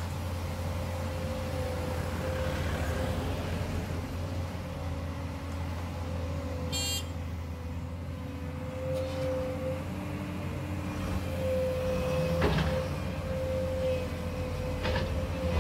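Volvo EC210 hydraulic excavator at work, its diesel engine running steadily under a constant whine from the hydraulics. Two sharp knocks come near the end as the bucket handles the gravel.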